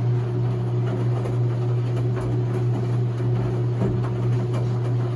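Enxuta Soft 4 kg washing machine running, its motor giving a steady low hum, with faint irregular ticks over it.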